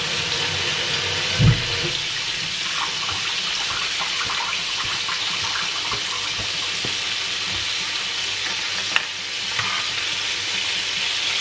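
Blue whiting frying in hot oil in a frying pan, a steady sizzle. There is a dull thump about one and a half seconds in and a single click near the end.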